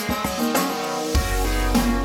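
Background music led by guitar with drums; a deep bass comes in about a second in.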